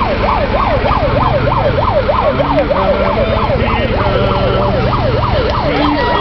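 A yelping siren, wailing rapidly up and down about four times a second, over the steady running of a Ford 4630 tractor's diesel engine.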